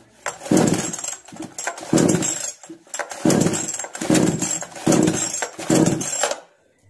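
Kisan Kraft KKC SP6522 two-stroke chainsaw being pull-started: about six quick pulls of the recoil starter, each cranking the engine briefly, and it never settles into running. This is the machine's starting problem.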